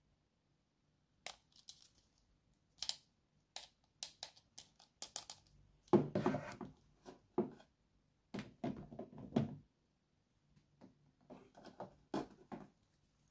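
Plastic toy doctor-kit pieces handled by hand: scattered sharp clicks and taps, with louder bursts of rustling and knocking about halfway through and again a couple of seconds later.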